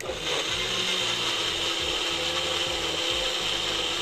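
NutriPro bullet blender's motor blending fruit and water into a smoothie in its jar. It starts right at the beginning, runs steadily, and cuts off near the end.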